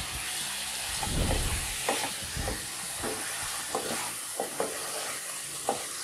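Raw chicken pieces sizzling in a little oil in a non-stick wok, just added and starting to sear, while a wooden spatula stirs them. The spatula makes short scrapes and taps against the pan every second or so.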